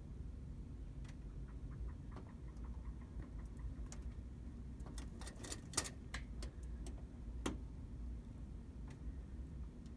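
Northern flicker's bill tapping on window glass: scattered light ticks, with a quick cluster of them about five to six seconds in. The bird is pecking at its own reflection, which the uploader takes for a male challenging a rival.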